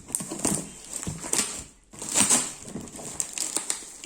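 A delivery box and its packaging being opened by hand: a run of irregular rustling, crackling handling noises, with a short pause about halfway.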